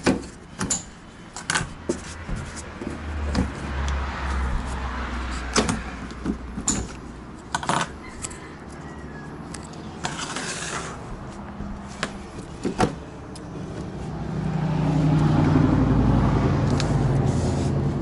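A hard plastic RV roof vent cover being unfastened and tipped back by hand: scattered clicks, knocks and clinks from its metal mounting brackets and plastic shell. A low rumble builds up and is loudest near the end.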